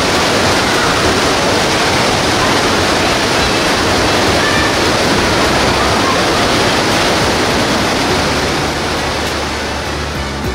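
Mountain stream cascading through a narrow rock gorge: steady, loud rushing white water, easing slightly near the end.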